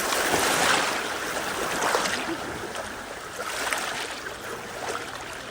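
River water rushing and splashing around a bamboo raft, coming in surges, louder about half a second in and again around two seconds.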